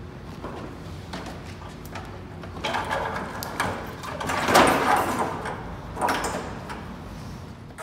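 Plastic front bumper cover of a Dodge Charger scraping and knocking against the car's front end as it is pushed and slid into place by hand. The scraping comes in a few strokes, the loudest about halfway through.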